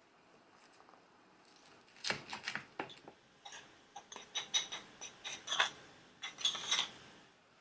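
Kitchen utensils and hard items being handled: a quick run of light clinks and rattles starting about two seconds in, some ringing briefly, then dying away near the end.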